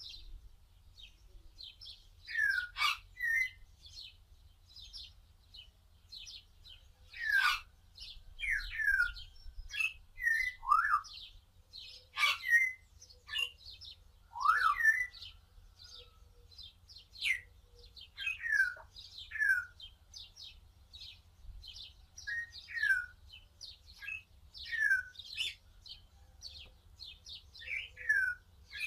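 Small birds chirping: a constant run of quick, high chirps, broken every second or two by louder short calls that slide in pitch.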